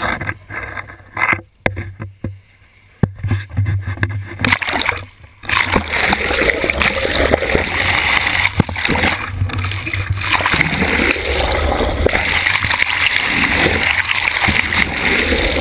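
Water splashing against a GoPro on a boat hook as it is dipped in and out of the bow wave of a sailboat under way, in short choppy bursts. From about five seconds in there is a continuous loud rush of water streaming past the camera held underwater.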